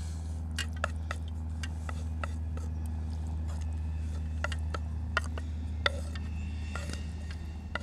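A utensil scrapes and taps against a non-stick frying pan and an enamel plate as cooked food is pushed off the pan onto the plate, making scattered short clicks and scrapes, the sharpest about six seconds in. A steady low hum runs underneath.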